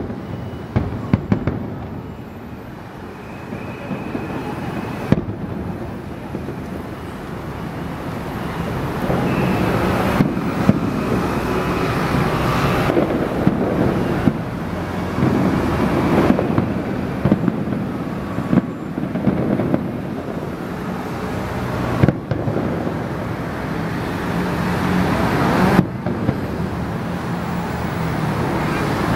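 Aerial fireworks display: shells bursting with sharp bangs every few seconds over a continuous din from the rest of the show.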